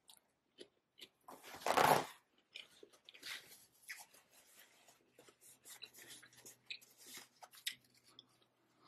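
Close-miked mouth sounds of a person chewing food: soft wet smacks and small clicks, with one louder noisy burst about two seconds in. A paper napkin rustles against the mouth a few seconds in.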